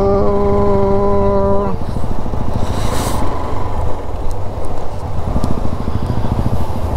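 Hero Xtreme 125R single-cylinder motorcycle running on the move, with wind rush on the microphone. A vehicle horn sounds a steady tone for nearly two seconds at the start, then cuts off.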